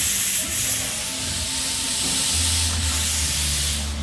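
Factory floor noise in an RV assembly plant: a steady hiss with a low machine hum underneath that grows stronger about two seconds in.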